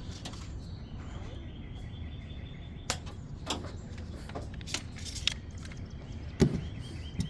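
Sharp, scattered clicks and knocks of hand tools working copper sheet, about six in all, the loudest a heavier knock near the end. A high, fast-pulsing chirr runs in the background.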